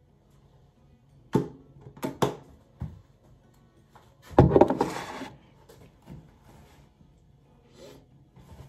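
Small skincare items being handled during a face routine: a few sharp clicks and taps, then a short, louder rubbing burst about four and a half seconds in, as hands work product over the face.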